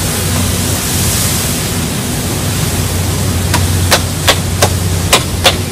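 Metal spatula chopping chicken on a street-cart flat-top griddle: a run of sharp metal clacks, about three a second, starting a little past halfway. Underneath is a steady hiss with a low hum.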